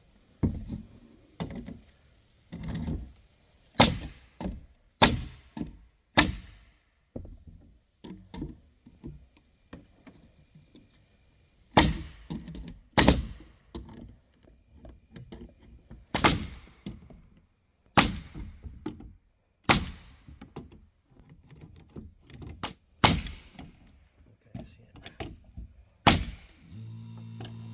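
Pneumatic palm nailer driving nails, a string of sharp, irregular cracks, some in quick pairs, running off the air stored in the tank. Near the end the 8-gallon oil-free air compressor's motor kicks on with a steady hum, refilling the tank.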